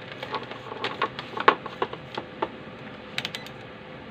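Small clicks and taps of a plastic soldering iron handle and its parts being handled and fitted, an irregular run of them, then a quick triple click a little after three seconds in.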